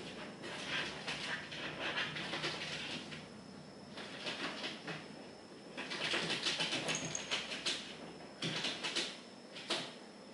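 Flat-faced Persian cat breathing noisily through its nose: a run of hissy, snuffling breaths every second or so, with the loudest stretch about six seconds in.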